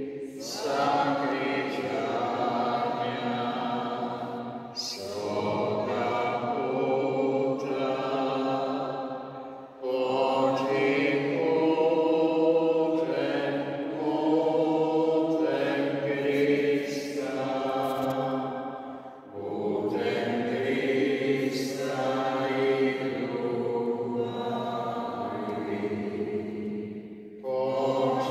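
Slow sacred choral singing in long held phrases, with brief pauses between the phrases.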